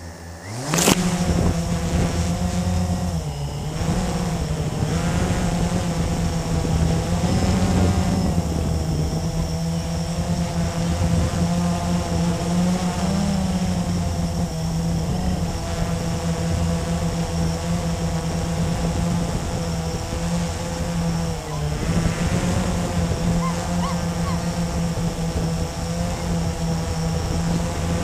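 Blade 350QX quadcopter's four brushless motors and propellers spinning up sharply about a second in, then running in flight with a steady hum whose pitch wavers as the throttle changes. Heard close from the camera mounted on the craft.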